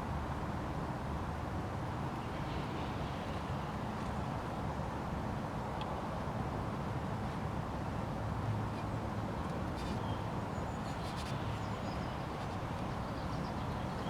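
Steady outdoor background noise with a low rumble, and a few faint clicks about ten seconds in.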